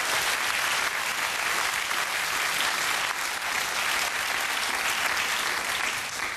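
Studio audience applauding: dense, steady clapping that fades away near the end.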